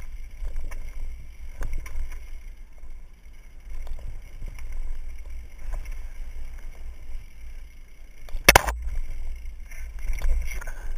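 Mountain bike rolling down a rough dirt trail, heard from a helmet camera: a steady low rumble with scattered clicks and rattles of the bike over the ground, and one sharp, loud knock about eight and a half seconds in.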